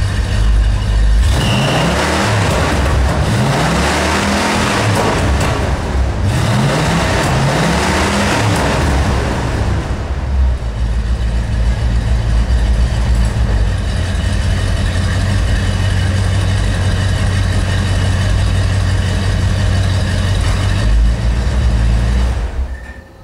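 Buick Electra V8 running through its Flowtech exhaust. It is revved up and down several times over the first several seconds, then settles to a steady idle and is switched off shortly before the end.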